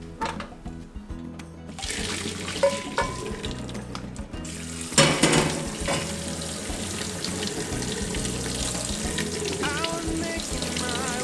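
Tap water running onto cooked ramen noodles in a stainless mesh strainer and splashing into a stainless steel sink, with a louder gush about five seconds in. The noodles are being rinsed in cold water after boiling.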